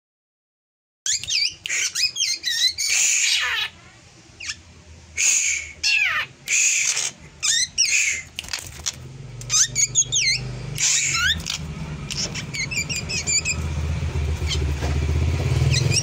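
A caged drongo singing an unusual, varied song: quick sweeping whistles and twisting notes, one after another, starting about a second in. From about nine seconds in, a low engine hum runs underneath and grows louder.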